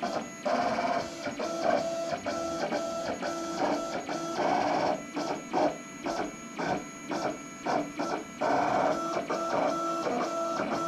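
USCutter vinyl cutter plotting a design into heat transfer vinyl: its stepper motors whine in quick start-stop moves as the blade carriage shuttles along the rail.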